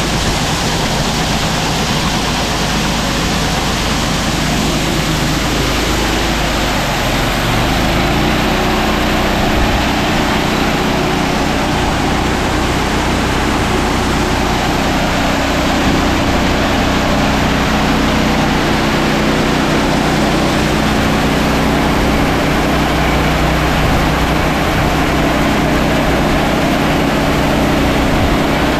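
Small gasoline engine running steadily to drive a portable grain auger, over the rushing hiss of shelled corn pouring from the bin's unload auger into the auger hopper.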